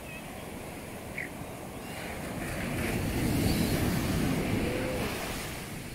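Surf breaking on a sandy beach and washing up the shore, a rushing wash that swells to its loudest a little past halfway and then eases off.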